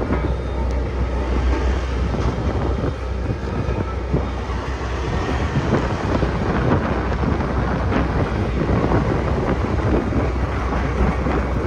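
Sakai road roller's diesel engine running with a steady, heavy low rumble, with wind noise on the microphone.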